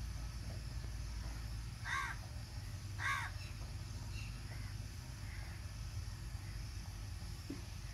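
A crow cawing twice, about a second apart, over a steady low rumble.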